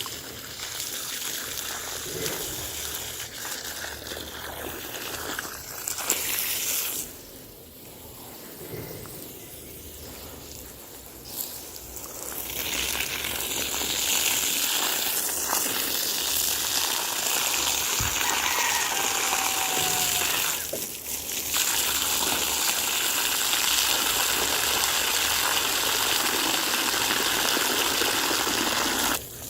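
Water gushing and splashing as plants are watered. It is quieter for a few seconds about a quarter of the way in, then steady and louder from about halfway, and stops suddenly just at the end.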